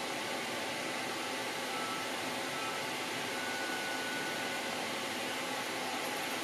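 Steady, even hiss with no distinct events, and a faint thin whistle-like tone that comes and goes.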